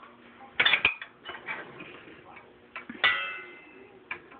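Sharp knocks and clinks on a stainless steel saucepan as butter goes in to melt. There is a quick cluster of knocks about half a second in, then one clink about three seconds in that rings briefly, and a last knock near the end.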